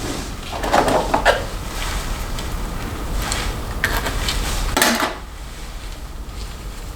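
Plastic snap-on hair rollers and their clips clattering and clicking as they are handled, in two short bouts of rattling about a second in and again between three and five seconds in.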